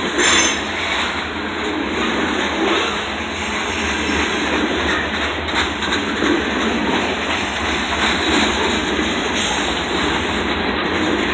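Covered hopper cars of a freight grain train rolling past, a steady rumble and clatter of steel wheels on the rails.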